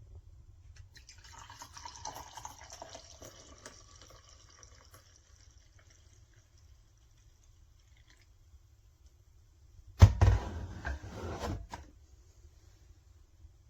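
Liquid pouring or trickling, fading away over a few seconds. About ten seconds in comes a loud burst of knocks and handling noise lasting under two seconds.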